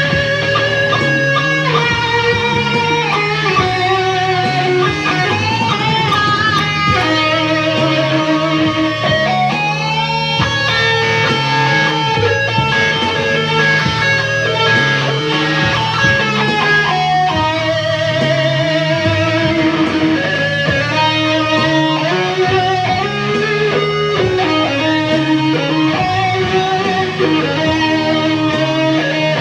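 Electric guitar jam: a lead guitar plays sustained notes with bends and vibrato over steady low bass notes.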